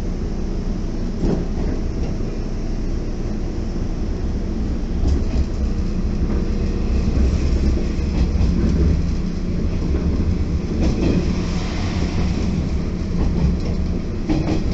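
Cabin noise of a moving electric commuter train: a steady low rumble with a constant hum, and now and then a sharp clack of the wheels over rail joints.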